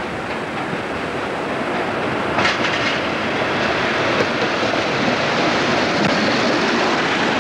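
British Rail Class 37 diesel locomotive with its English Electric V12 engine running as it pulls into the platform, growing steadily louder as it draws near and passes. A brief hiss comes about two and a half seconds in.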